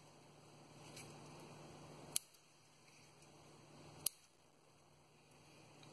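Bonsai scissors snipping through pepper-plant stems: two sharp cuts about two seconds apart, with a fainter click about a second in.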